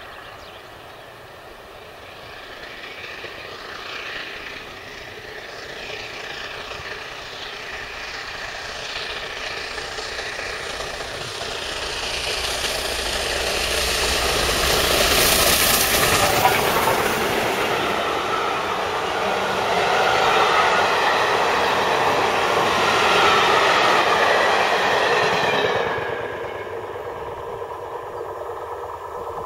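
Steam locomotive 71000 Duke of Gloucester, a three-cylinder Pacific, working an express train past at speed. The exhaust beats grow from faint to loud, peaking as the engine goes by about halfway through. The coaches' wheels then clatter along the rails until the last coach passes a few seconds before the end, when the sound drops away suddenly.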